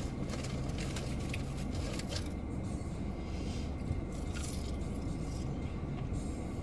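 Steady low hum of a car cabin with the engine idling, with faint scrapes and small clicks of food being handled and eaten.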